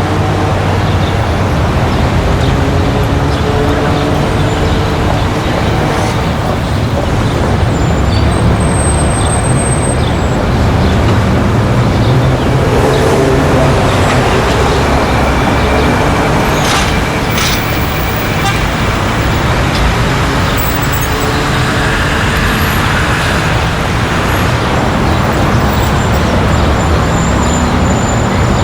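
Busy street traffic: a steady mix of car and bus engines passing, with the occasional short horn toot.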